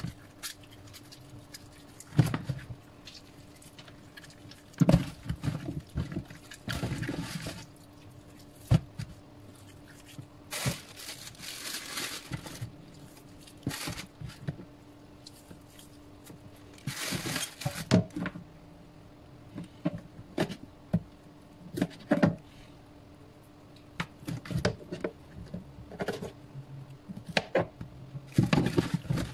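Hands rubbing, squeezing and turning wet raw chicken pieces in a plastic basin: irregular squelches, splashes and sharp knocks, with a few longer wet rubbing bursts. A faint steady hum runs underneath.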